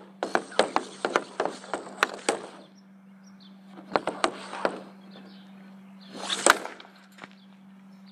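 Hockey stick handling a puck on a hard shooting surface: rapid clacks of the puck against the blade, with the blade scraping across the surface. A shorter flurry of taps comes about four seconds in, then one harder hit about six and a half seconds in as the puck is shot.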